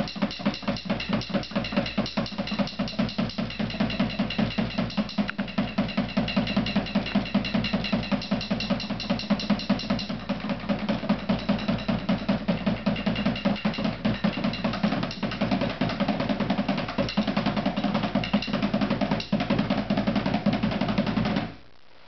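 Large laced hide-headed drum beaten fast and steadily with a bear leg bone and a wooden drumstick, about five or six strokes a second. The beating stops abruptly near the end.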